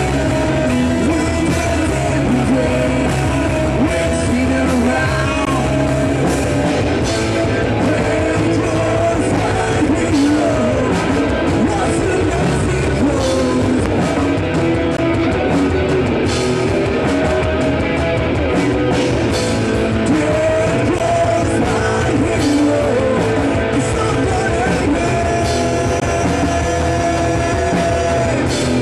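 A rock band playing live: a singer over electric guitars, bass guitar and a drum kit, loud and continuous.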